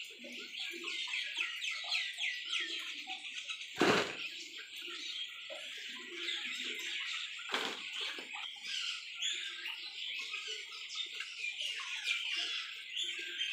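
Many small birds chirping continuously, with two sharp knocks, about 4 and 7.5 seconds in.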